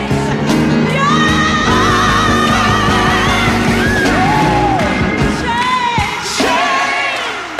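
Gospel song: a solo voice sings long, wavering held notes over a band accompaniment. About six seconds in, the band drops away and the voice sings on almost alone with a falling glide.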